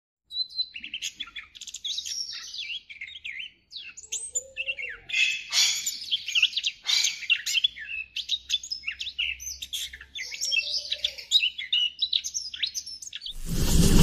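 Small caged songbird singing a rapid, varied song of chirps, trills and whistles in quick succession. A rising rush of noise cuts in just before the end.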